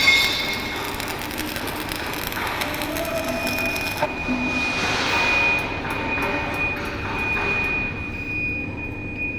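Steady mechanical noise with a thin high squealing tone and many scattered clicks.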